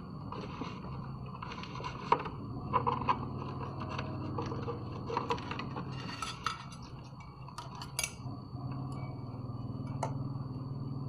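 Small metal clinks and taps of tools and parts being handled, scattered irregularly with a few sharper knocks, over a steady low hum and a faint high whine.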